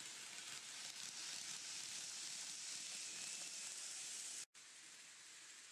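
N-scale E3-series Shinkansen model train running along the track: a faint, steady hiss of wheels and motor that swells as the train passes. It cuts off abruptly about four and a half seconds in, and a quieter hiss follows.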